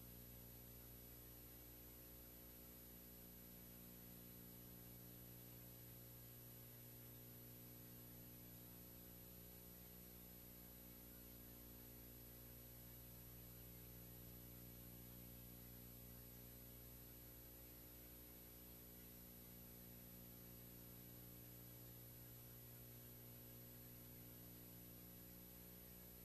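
Near silence: a faint steady hum with hiss, unchanging throughout.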